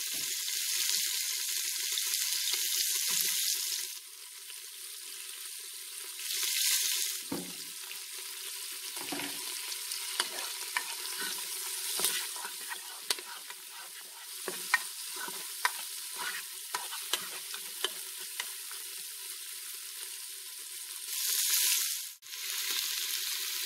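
Chopped onion, green chillies and curry leaves sizzling in hot oil in an electric pressure cooker's pot. The sizzle is loudest for the first few seconds after the onion goes in, then settles. From about nine seconds in, a spatula stirring the pan makes quick light scrapes and taps against the pot.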